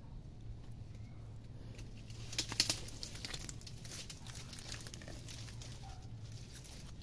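Bolo knife digging into mangrove mud, with a cluster of sharp clicks and scrapes a couple of seconds in and smaller ticks after, over a faint low rumble.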